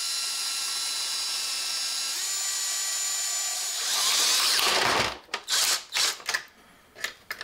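Cordless drill spinning a 3/4-inch spade bit into the thin plastic of a refrigerator's control housing with light pressure: a steady motor whine, then a louder, rougher cutting noise about four seconds in as the bit chews through the plastic. The drill stops about a second later, and a few short, sharp noises follow.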